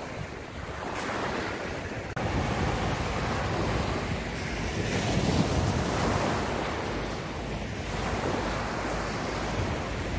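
Small surf breaking and washing up a sandy beach, with wind buffeting the microphone; the level steps up abruptly about two seconds in.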